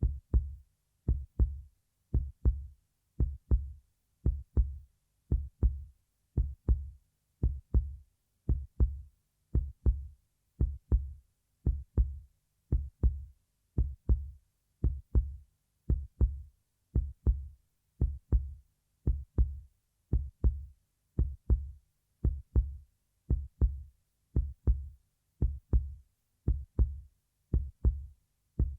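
Heartbeat sound effect: steady paired low thumps, a lub-dub about once a second, with silence between beats.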